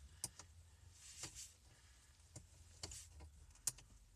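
Light, scattered clicks and taps of plastic dash parts being handled, five or so sharp ticks with faint rustling between, the loudest near the end.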